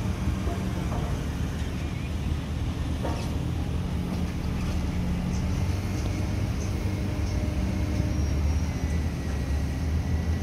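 Heavy dump truck's diesel engine running steadily with a low rumble.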